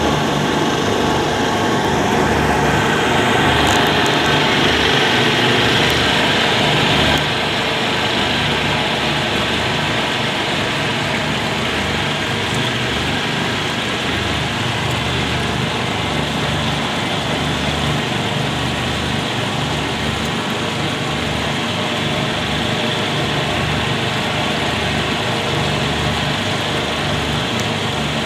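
Manure dewatering screw press running: its electric motor and gear reducer give a steady machine hum with a low, uneven throb. The higher part of the noise drops a little about seven seconds in.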